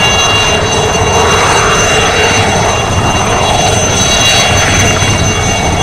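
Alouette III helicopter hovering low and close: the loud, steady whine of its Turbomeca Artouste turboshaft, several high tones held level, over the rumble of the turbine and main rotor.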